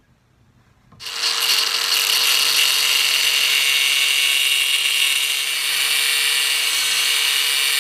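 Angle grinder with a cut-off wheel slicing through a metal bolt clamped in a vise. It starts about a second in, then a steady high grinding over a constant motor whine.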